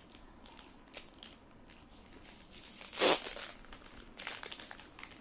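Foil wrapper of a Pokémon card booster pack crinkling as it is handled and torn open, with one louder, short burst about three seconds in.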